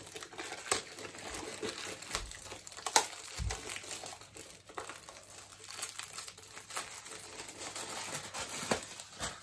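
A clear plastic bag crinkling and crackling as an audio interface is unwrapped from it, with irregular small snaps and a sharper crackle about three seconds in.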